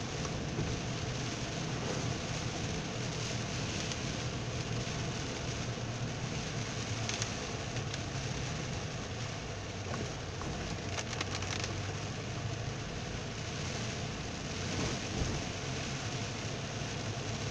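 Heavy rain pattering on a moving car and hissing on the wet road, heard from inside the car, over the engine's low, steady hum, with a few sharper crackles of drops about a third of the way in and again past the middle.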